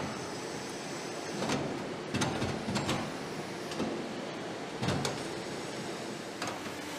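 Automated cylinder-head assembly station machinery: pneumatic actuators and linear slides clacking and knocking about seven times at irregular intervals, several close together a couple of seconds in, over a steady factory hum.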